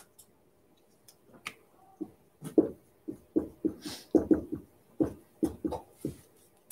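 A pen knocking and rubbing against a whiteboard as figures are written: a run of short, irregular knocks, several a second, starting about two seconds in.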